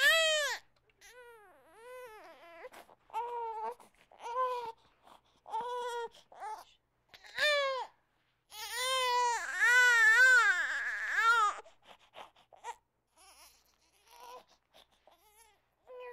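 Infant crying in a run of short, arching wails with brief gaps between them. About halfway through, the crying swells into one long, loudest cry, then trails off into faint whimpers.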